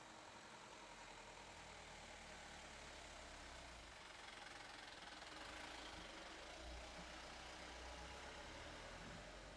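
Faint low rumble of a distant motor vehicle's engine, setting in about a second in and growing slightly louder, over a steady background hiss.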